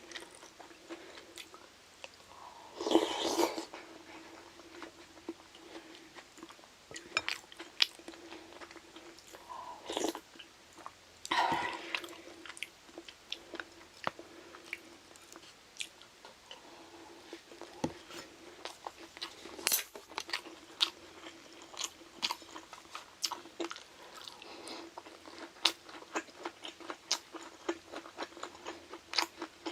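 Close-up eating sounds: chewing and crunching of Korean side dishes, with many short sharp crunches and clicks and a few louder bursts about three and eleven seconds in. A faint steady hum runs underneath.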